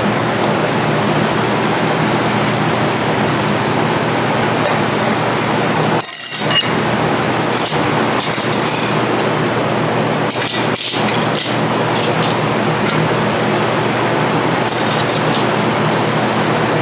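Steady hiss throughout, with light metallic clinks of steel and brass clutch plates being set onto the clutch pack of a Twin Disc MG514C marine gearbox. The hiss briefly drops out about six seconds in.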